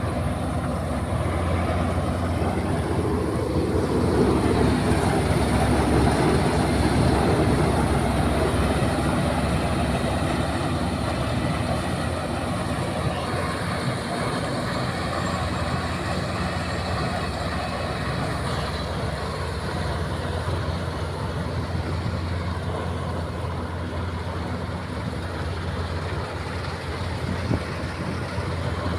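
Combine harvester running steadily while harvesting wheat: a continuous engine drone with the even noise of its working machinery.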